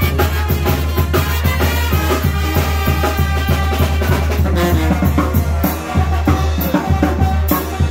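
Live brass band playing dance music: a sousaphone carrying the bass under the other instruments, with drums keeping a steady beat.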